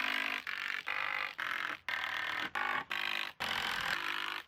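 Cordless drill running in a quick series of short bursts, driving screws down through the roof sticks.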